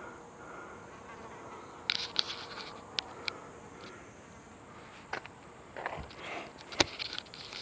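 Cannondale F-Si hardtail mountain bike on a trail: scattered sharp clicks and knocks, the loudest near the end, over a steady faint buzz.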